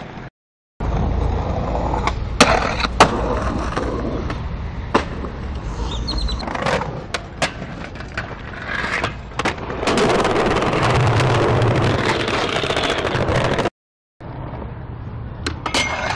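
Skateboard wheels rolling on concrete, with sharp tail pops and board-landing clacks, and the scraping of metal trucks grinding along a ledge edge in 50-50 grinds. The sound drops out briefly twice at edit cuts.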